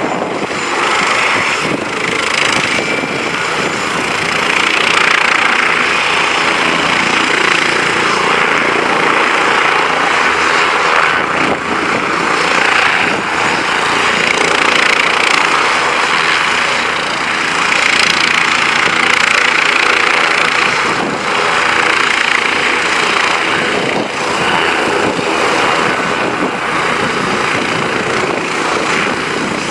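Leonardo AW169 twin-turbine helicopter running on the ground with its rotors turning: a loud, steady turbine whine and rotor noise that swells and eases slightly every few seconds.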